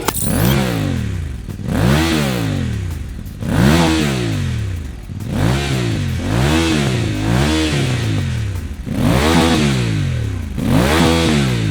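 VOGE DS 800 X Rally parallel-twin engine revved through a Scorpion stainless slip-on exhaust: about eight quick throttle blips, each rising sharply in pitch and falling straight back.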